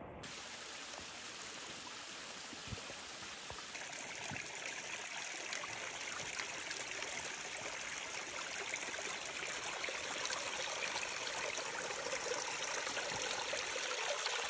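Small mountain stream of water running down a wet rock face and trickling among stones: a steady rush that slowly grows louder.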